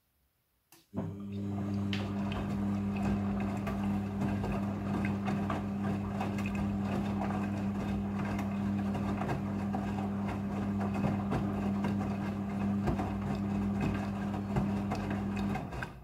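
Front-loading washing machine's drum turning during the rinse: after a click, the motor starts about a second in with a steady hum while wet laundry tumbles inside, then stops abruptly near the end.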